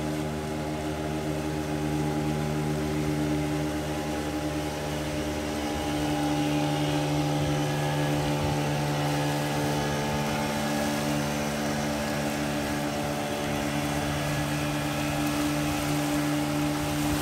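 Small fishing boat's outboard motor running steadily under way, a constant engine drone that gets slightly louder about six seconds in.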